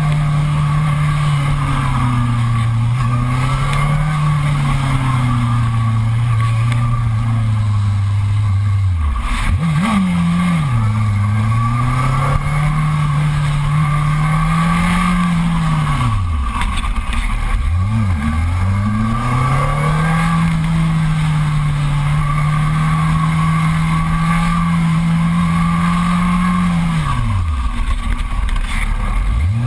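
Sport motorcycle engine running at speed under changing throttle: its pitch holds steady, sags and climbs again. Several times the revs drop sharply and then rise back.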